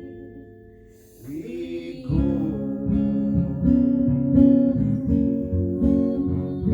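Acoustic guitar: a held chord fades away, then after a short scratchy noise the guitar starts strumming chords again in a steady rhythm about two seconds in.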